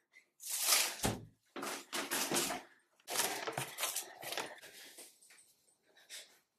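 A white uPVC window being handled as its handle is worked: a rustling swell ending in a sharp knock about a second in, then more rustling and clunking handling noise that fades toward the end.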